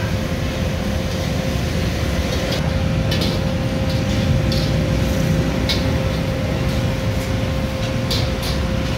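Steady low rumble of background traffic with a constant hum, and a few light clicks scattered through.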